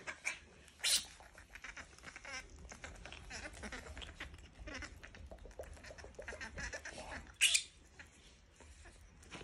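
Baby macaque making soft squeaks and whimpers, with two short, sharper squeals, one about a second in and one near the end.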